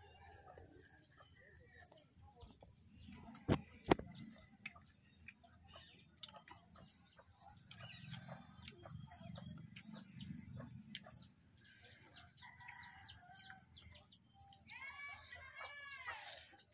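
Birds chirping over and over in short, high, falling notes, with chickens clucking among them and a longer rising-and-falling call near the end. Two sharp clicks come about half a second apart, a little after three seconds in.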